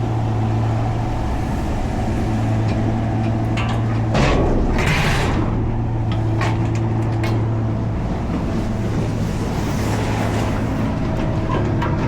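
Pickup truck running steadily, a constant low engine drone with road noise, and a brief swelling whoosh about four seconds in.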